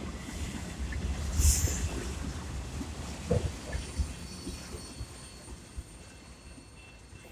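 CN freight train rolling past: a low rumble with a few knocks and clanks that fades away.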